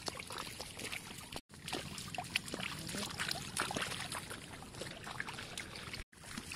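Small splashes and trickles of muddy paddy water as rice seedlings are pushed by hand into the flooded mud and people wade through it. The sound cuts out abruptly twice, about a second and a half in and near the end.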